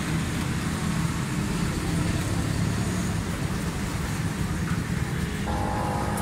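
Steady low rumble of background road traffic. A steady higher tone joins about five and a half seconds in.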